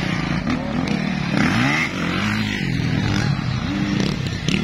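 Several motocross dirt bike engines revving hard, their pitch rising and falling over and over as the riders work the throttles over the jumps.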